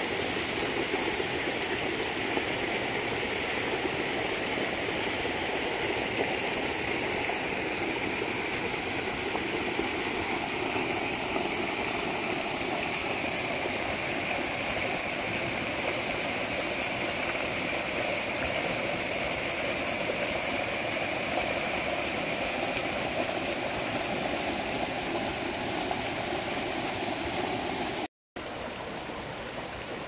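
Small mountain waterfall: water pouring steadily over a rock ledge into a pool. Near the end it breaks off briefly, then returns a little quieter as a shallow stream running over stones.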